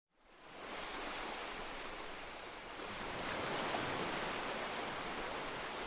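Steady rushing of ocean surf, fading in about half a second in and swelling slightly midway.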